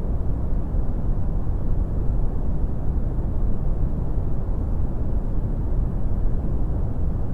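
Steady brown noise: an even, deep rumbling hiss, strongest in the bass and falling away toward the treble.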